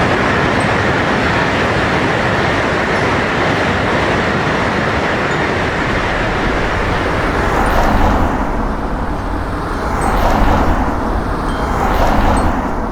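A train passing at speed, a steady loud rumble of wheels on rails with three louder clattering surges in the last five seconds.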